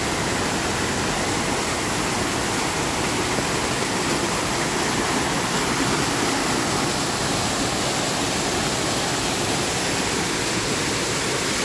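Muddy storm runoff from heavy rain pouring over the eroded edge of an excavated street trench and splashing down into it: a steady rushing of water.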